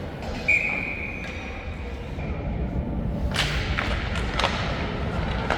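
Ice hockey play: about half a second in, a sharp strike sets off a clear metallic ring at one pitch that fades away over about two seconds. A few sharp clacks of sticks and puck follow later, over a steady low arena rumble.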